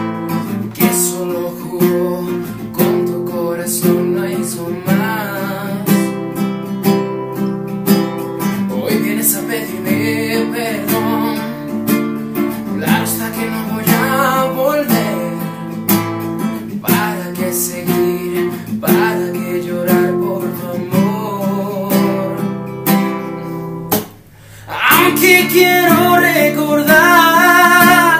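Classical guitar strummed in steady chords while a man sings along. The playing breaks off briefly about 24 seconds in, then comes back louder with the singing.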